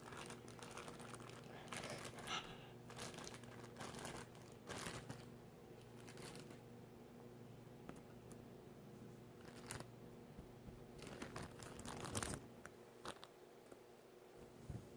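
Packaging being handled, crinkling and rustling in short irregular spells, loudest about twelve seconds in.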